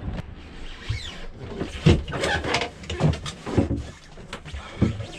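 Irregular knocks and clunks of someone moving about inside a sailboat's cabin and handling tools and gear, with about four or five louder thumps spread through the sound.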